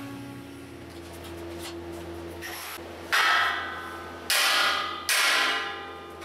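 A hammer striking a steel square-tube frame three times in the second half, each blow sharp and ringing down with a metallic tone.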